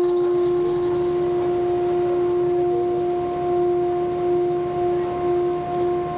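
Horn of a BEML-built WRB-1 railbus sounded in one long, steady blast on a single unwavering pitch, heard from inside the passenger compartment.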